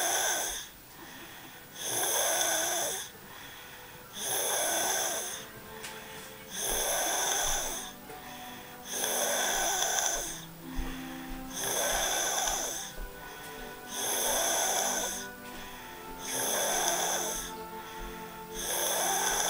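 A sleeping person snoring in a steady rhythm: nine snores, one about every two and a half seconds, each lasting about a second.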